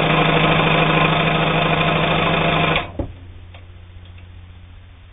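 Brother 1112A steel-geared sewing machine running steadily, sewing a straight stitch through cotton sheeting. It stops a little under three seconds in with a short knock, leaving only a faint low hum.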